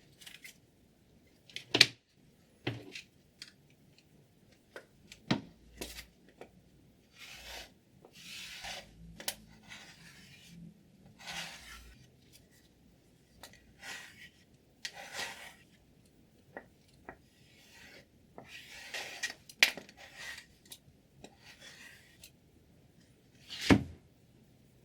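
Sharpening stone drawn in short, irregular rasping strokes along a scissor blade, with several sharp clicks in between.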